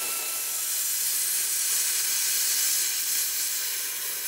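Cutting torch hissing steadily as it burns through a rusty steel frame bracket.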